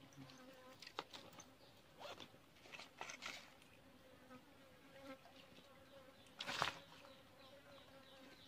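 Faint, steady buzzing of flying insects by the water, with a few brief handling noises from the fishing rod and reel. The loudest of these comes about six and a half seconds in.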